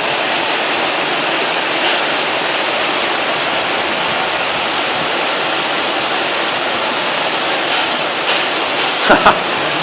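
Very heavy rain pouring down, a steady, dense hiss of water.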